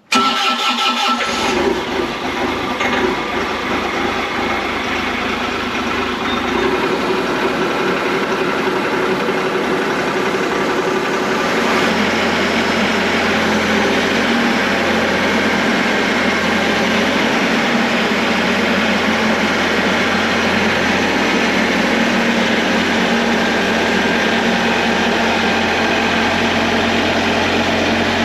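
Bobcat E42 mini excavator's diesel engine cold-starting: it cranks briefly, catches within about a second and a half, then runs steadily at idle. The engine note shifts a little lower about twelve seconds in.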